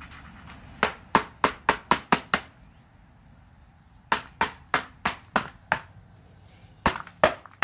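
A rock repeatedly striking the back of an iPhone 4 to smash it, in three runs of sharp, quick blows about three a second: roughly seven, then six, then two near the end.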